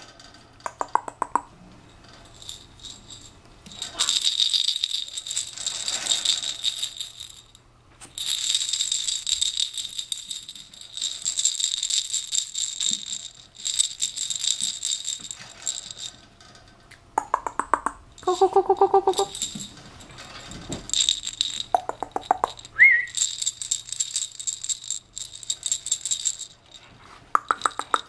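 A jingling rattle toy shaken in repeated bursts of a second or more. Between the bursts there are a few short, high-pitched yips and a brief rising squeak from a young puppy.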